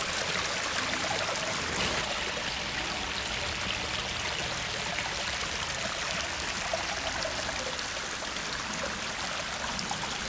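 Pump-fed water running down a stone garden-pond cascade, a steady splashing trickle over the rocks.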